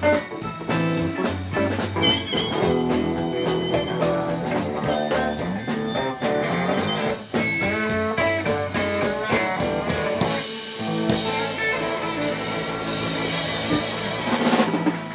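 Live electric blues band playing, with electric guitars and a drum kit. The bass end thins out about two-thirds of the way through, leaving guitars over a cymbal wash.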